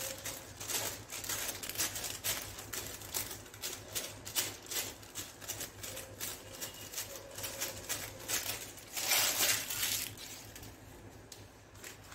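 Paper backing sheets of edible silver leaf rustling and crinkling as they are pressed onto laddus by hand and peeled away, in quick irregular scratchy strokes. A longer, louder rustle comes about nine seconds in.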